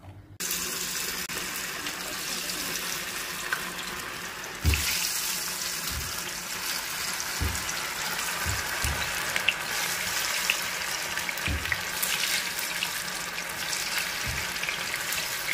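Rava-battered cauliflower pieces deep-frying in hot oil in a kadai: a steady sizzle of bubbling oil that gets louder about five seconds in as more pieces go in, with a few soft low thumps.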